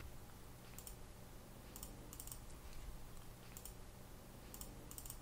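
About half a dozen faint, scattered clicks from a computer keyboard and mouse, over low steady room hiss.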